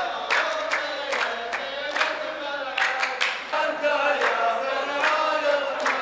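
A chorus of men chanting a verse in unison, the rows of a muhawara poetry duel, over steady rhythmic hand-clapping at about two to three claps a second.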